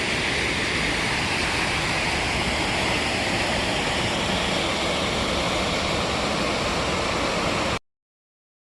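Seneca Creek Falls, a waterfall, rushing steadily at close range, a dense hiss of falling water. It cuts off abruptly near the end.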